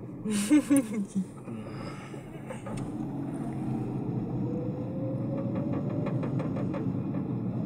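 Small car's engine and road noise heard from inside the cabin while driving slowly, with the engine note rising and easing off gently in the second half.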